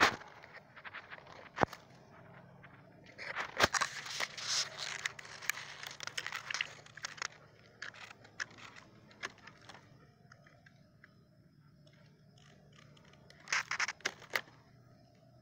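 Dry palm fronds, leaves and twigs rustling and crackling in irregular bursts, with a few sharp snaps: one long stretch of rustling after about three seconds and a shorter one near the end.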